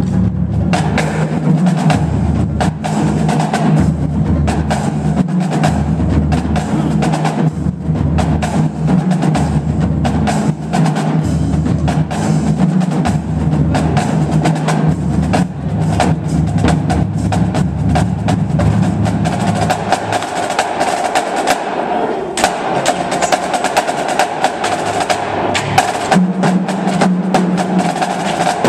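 A marching drumline of snare drums, tenor quads and bass drums playing a fast, dense cadence of rapid stick strokes and rolls. The low bass-drum part drops out about two-thirds of the way through, leaving the snares and tenors, and a deeper drum part comes back in near the end.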